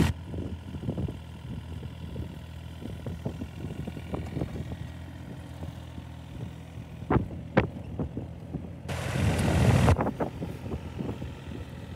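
Grillo FD13.09 4WD ride-on mower's engine running at a low, steady throb as the machine drives slowly, with scattered light knocks and clicks. Two sharp ticks come about seven seconds in, and a louder rush of noise about nine seconds in lasts roughly a second.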